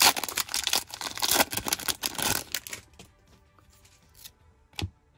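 A plastic trading-card pack wrapper being torn open and crinkled for about three seconds. Then comes a quieter stretch with a single sharp snap near the end as the cards are handled.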